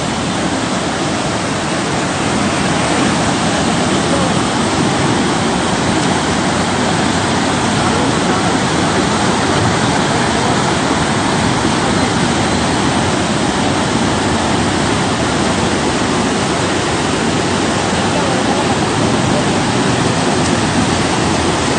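Floodwater released from a reservoir's gates rushing in white rapids over a washed-out road: a loud, steady rush of churning water.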